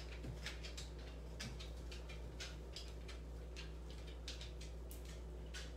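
Light, irregular clicking of a dog's claws on a wooden parquet floor, a few clicks a second, over a steady low electrical hum.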